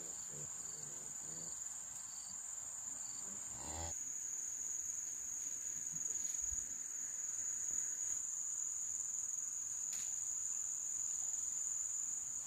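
Insects keeping up a steady, high-pitched drone.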